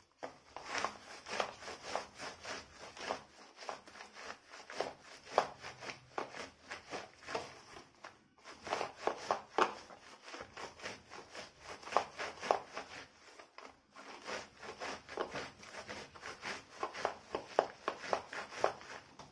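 Hands rubbing and crushing fresh ambadi (roselle) leaves against a woven winnowing tray (supda), a dry scraping rub in brisk repeated strokes, about three a second, with brief pauses. The leaves are being bruised to draw out their juice so they won't crumble when dried.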